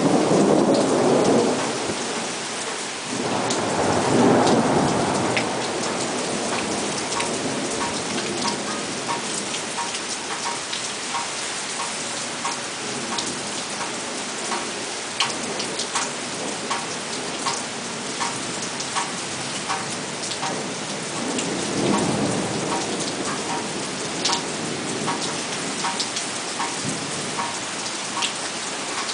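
Heavy rain pouring steadily, with single drops tapping sharply close by. Thunder rumbles roll in at the start, again about four seconds in, around twenty-two seconds in, and once more just at the end.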